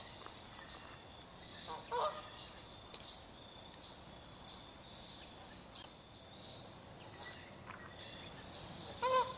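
Canada geese honking: one call about two seconds in and a louder one near the end. Underneath, a high, faint chirp pulses evenly about one and a half times a second.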